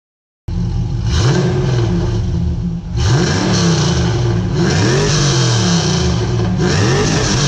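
2002 Pontiac Trans Am WS6's LS1 V8 running through an aftermarket stainless exhaust and being revved again and again in quick throttle blips. The sound cuts in abruptly about half a second in and stays loud.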